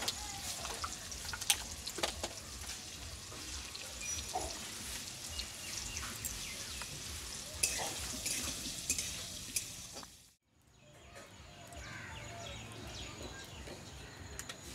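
Scattered clicks and knocks of firewood sticks and metal utensils at a wood-fired clay stove. After a brief cutout about ten seconds in, a quieter steady faint hiss of mustard oil heating in a wok over the fire.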